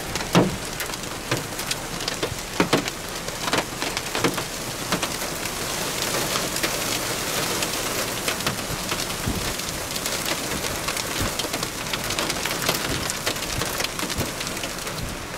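Heavy rain pouring down, a steady hiss with scattered sharp taps of drops striking close by, the taps thickest in the first few seconds.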